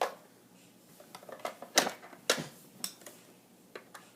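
Irregular hard clicks and knocks of objects being handled, with two louder knocks near the middle.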